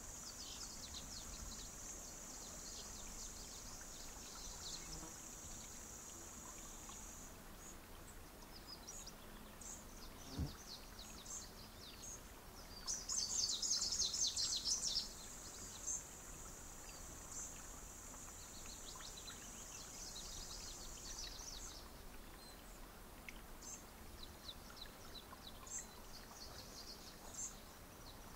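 Small birds chirping in short, high calls over a steady high buzz that stops about a quarter of the way in and comes back in the middle, with a dense burst of chirping about halfway through. A single soft thump a little before that.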